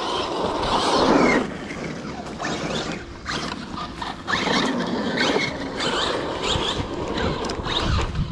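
Arrma Kraton 6S RC truck running hard, its brushless electric motor whining up and down with the throttle over a rushing noise of tyres on the ground, loudest about a second in and again past the middle.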